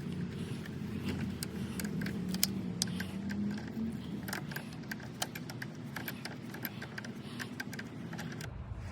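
Irregular light metallic clicks and taps of a wrench working the nut of a car battery terminal clamp as it is tightened, over a steady low background hum that cuts off near the end.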